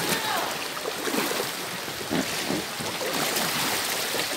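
Sea water sloshing and lapping against an inflatable kayak as it is paddled, a steady watery wash.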